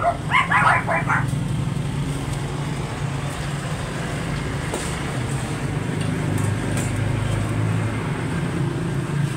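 Steady low hum of motor vehicles in street traffic, a little louder about two-thirds of the way through. A dog barks about four times in the first second.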